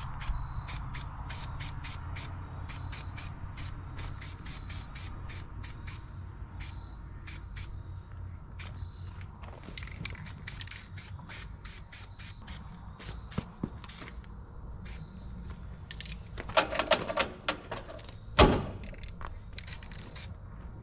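Aerosol can of orange touch-up spray paint being shaken, its mixing ball rattling about three times a second, then hissing in short bursts as paint is sprayed. Near the end come a few louder hisses and a sharp clack. Background music with a steady low hum runs underneath.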